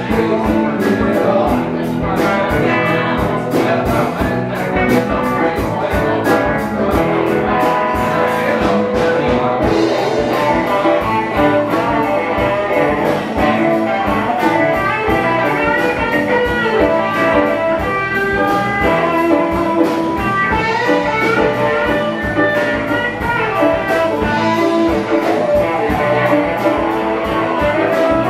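Live band playing loudly, with electric guitar lines over drums. A fast, even ticking high in the mix runs for the first ten seconds or so and then stops.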